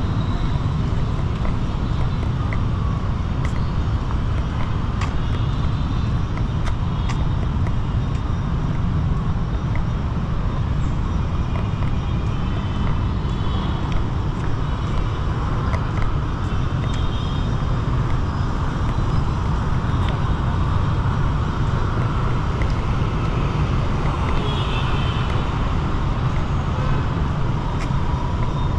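City street traffic: a steady, unbroken rumble of passing road vehicles, with faint voices and small clicks over it.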